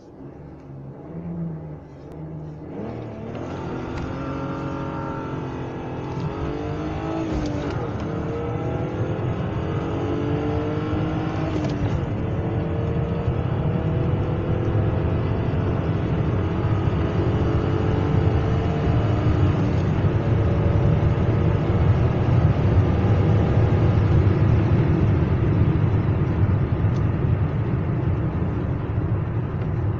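BMW E39 528i's straight-six engine, heard from inside the cabin, idles briefly and then accelerates hard through the gears of its manual gearbox. The engine note climbs, breaks twice for quick gear changes, then climbs more slowly in a higher gear as road and wind noise build.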